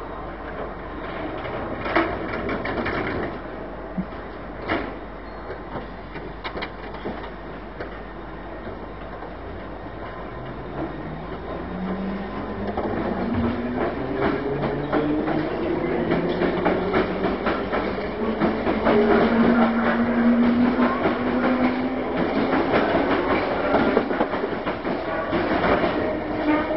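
London Underground 1962 tube stock train pulling out. A couple of sharp knocks in the first few seconds as its doors shut. Then, from about ten seconds in, the traction motors whine in several tones rising together in pitch as it accelerates, with the wheels clattering and the sound growing louder.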